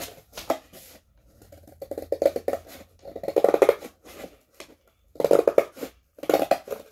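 Sharp scissors cutting through cardboard box flaps, in about four bursts of quick snips, each under a second.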